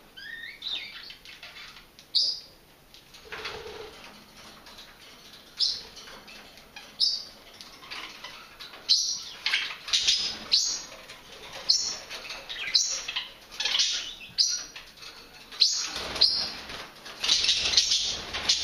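Budgerigars chirping in short, sharp calls, about one a second and more crowded toward the end, with wing fluttering, as they squabble over a dandelion leaf.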